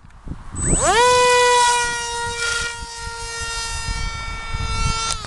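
Motor and pusher propeller of a scratch-built twin-boom RC plane spooling up with a rising whine just under a second in, then holding a steady high-pitched whine.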